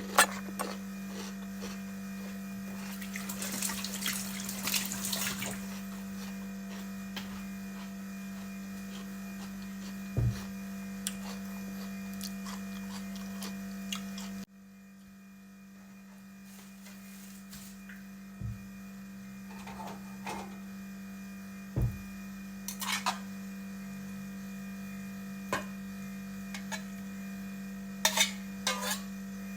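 Steady electrical hum with scattered light clicks and knocks of kitchen utensils, and a brief stretch of hissing noise about three to five seconds in. The hum cuts out for a moment about halfway through and then comes back.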